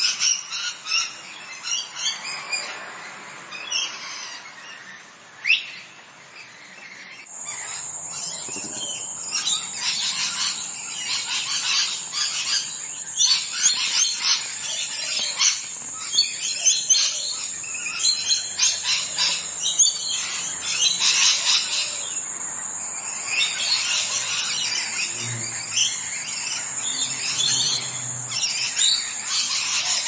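Birds chirping in a rapid run of short, high calls. About seven seconds in, a steady high-pitched tone joins them and keeps going under the chirps.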